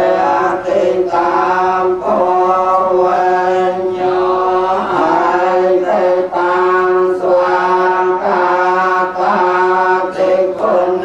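Group of voices in Buddhist chanting, reciting in unison on one steady pitch, with short breaks between phrases about once a second.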